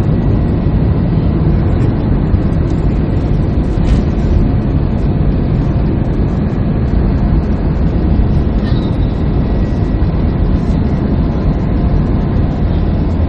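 Steady loud cabin noise of an Airbus A320 during takeoff: the twin jet engines running at high thrust, heard as a deep rumble with a faint steady high whine over it.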